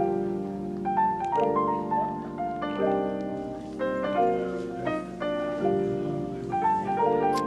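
Background music: a gentle piano-led instrumental track playing a series of held notes and chords.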